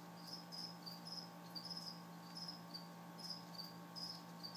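Crickets chirping: short high chirps about three a second, alternating between two slightly different pitches, over a faint steady hum.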